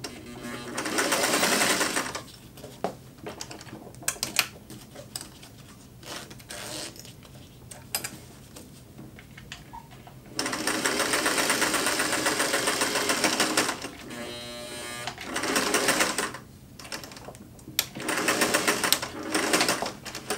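Singer 503A Rocketeer sewing machine stitching in several bursts, the longest about three seconds around the middle, with short pauses and small handling clicks between them.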